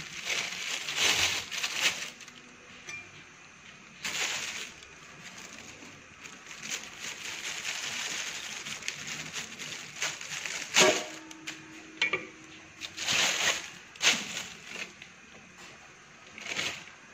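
Thin plastic bag rustling and crinkling as a cauliflower is handled inside it, with a few short sharp knocks and snaps as a kitchen knife cuts florets from the head.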